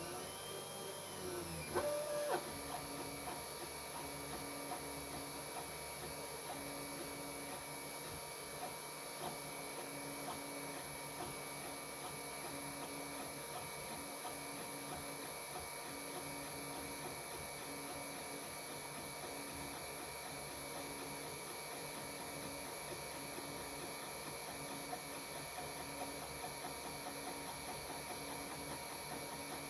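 Geeetech A10 FDM 3D printer printing: its stepper motors whine in quick rising and falling tones as the print head moves in the first two seconds, then settle into a steady, repeating hum, with a constant high fan hiss throughout.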